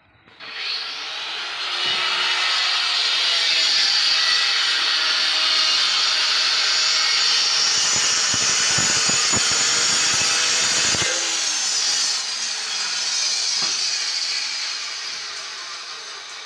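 Handheld electric marble cutter running and cutting stone, a loud high-pitched grinding that starts about half a second in, holds steady and then slowly fades near the end. There are a few knocks near the middle.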